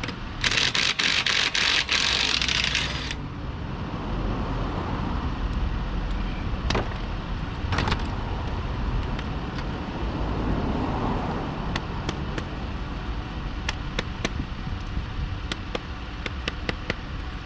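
Van engine idling under tire-change work. A loud hissing whir lasts about two and a half seconds near the start, followed by scattered sharp metal clicks and knocks as the wheel goes back on.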